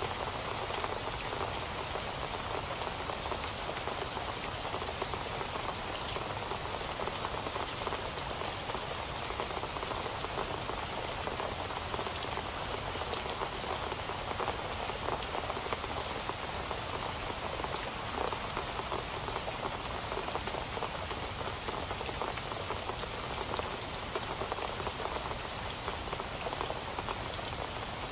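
Steady rain falling on a surface, a constant hiss of drops with many small individual drop ticks.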